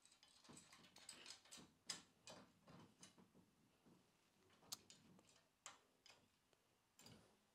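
Faint, irregular clicks and ticks of a fastener being threaded and turned by hand on the handlebar post of a squat-assist rowing trainer. They come thickly in the first three seconds, then as a few single clicks.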